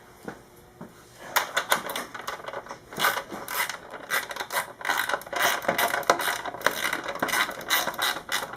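Ratchet wrench clicking rapidly and unevenly as it turns a motorcycle chain adjuster bolt, starting about a second and a half in.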